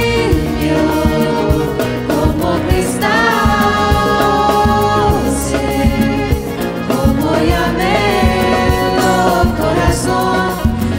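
Devotional song: a lead voice with backing singers over acoustic guitar, keyboards and a steady drum-kit beat, with a long held sung note about three seconds in.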